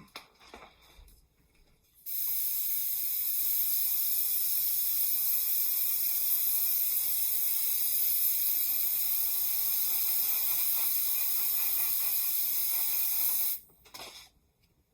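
Airbrush spraying acrylic paint at about 20 psi: a steady hiss of air that starts about two seconds in and cuts off sharply near the end.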